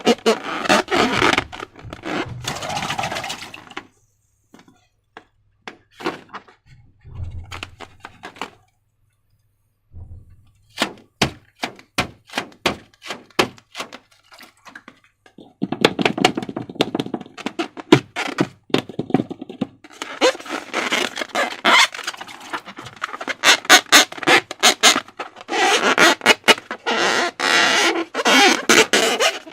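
Slime being squeezed, stretched and mixed by hand, making dense runs of sticky clicks and squelches. Through the middle the handling thins out to separate clicks, about two a second, before the busy squishing starts again.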